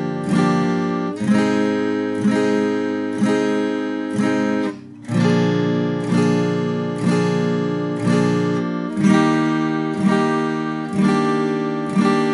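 Acoustic guitar with a capo at the third fret, strummed with a pick in slow, even downstrokes of open-chord shapes (G, G7, Em7, F, then C and CM7), about one strum a second. The sound briefly drops away about five seconds in, then the strumming picks up again.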